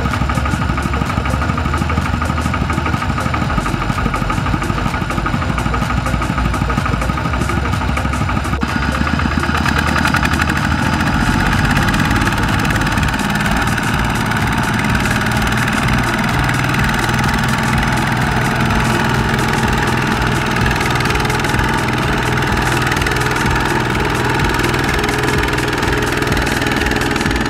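Single-cylinder diesel engines of two-wheel walking tractors running hard with a rapid, knocking beat, under load as they drive their wheels through deep paddy mud. The engine note changes about nine seconds in.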